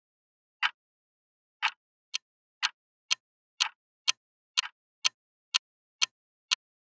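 Countdown timer ticking sound effect: sharp, clock-like ticks, one a second at first, then speeding up to two a second from about two seconds in.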